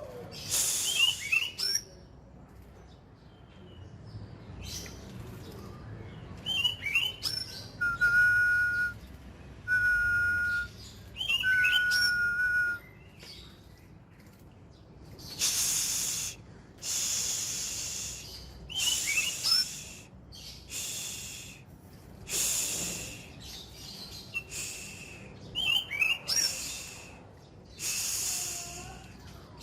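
Oriental magpie-robin singing and calling: short rising chirps, then three held clear whistles about eight to twelve seconds in, followed by repeated loud, harsh rasping bursts.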